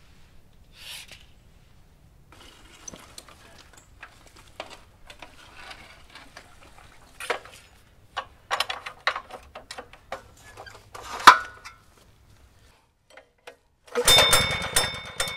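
A short hiss about a second in. Then metal clanks and rattles as the auger's steel handle frame and hoses are dragged over the ground, with one sharp loud clank. Near the end the small gasoline engine of a one-man post-hole auger power unit starts suddenly and runs steadily.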